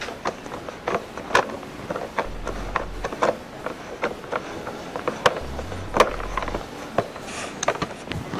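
A hand screwdriver backing screws out of an Oreck upright vacuum's plastic bag stiffener: irregular sharp clicks and knocks of the tool against the screw heads and the hard plastic.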